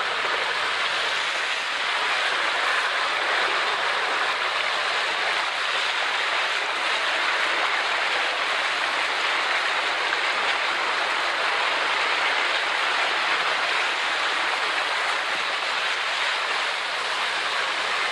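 Motor scooter riding through floodwater: a steady rush of water sprayed up by its wheels.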